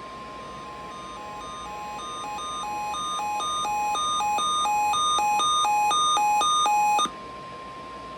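Emergency weather alert tones: a steady single-pitch alarm tone like the NOAA Weather Radio warning tone, overlaid by a two-pitch alternating alarm that swells louder and cuts off abruptly about seven seconds in, leaving the steady tone sounding alone.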